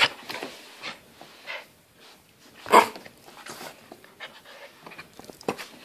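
Toy poodle puppy playing right at the microphone: a string of short, breathy huffs and snuffles, with one louder burst about three seconds in.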